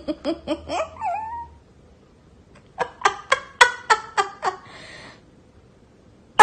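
A Boston terrier vocalizing: several short, rising whiny yips in the first second and a half, then a quick run of about eight pitched calls nearly three seconds in.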